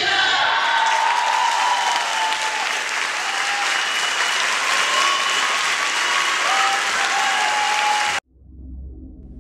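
Audience applauding at the end of the routine, a steady clapping that cuts off abruptly about eight seconds in, after which a low hum starts.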